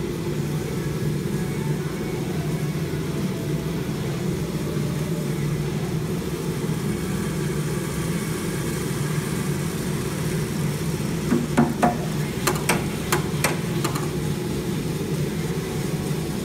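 Giesen W15 drum coffee roaster running with a steady low hum as a batch of green coffee beans drains from its hopper into the drum. A quick run of sharp knocks comes a little past the middle.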